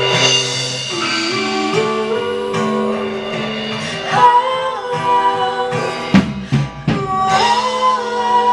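A woman singing long held notes into a microphone over a strummed acoustic guitar.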